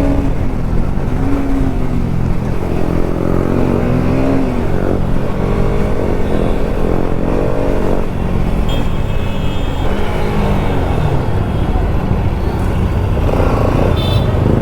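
Bajaj Pulsar RS200's single-cylinder engine revving up and falling back several times while riding, its pitch rising and dropping as the rider works the throttle and gears.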